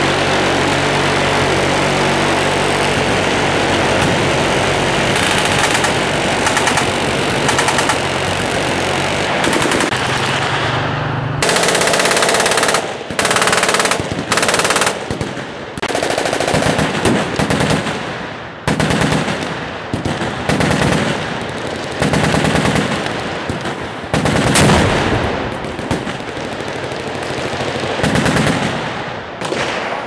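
Many machine guns firing at once in a continuous din for about the first eleven seconds, then separate bursts of automatic fire with short gaps between them.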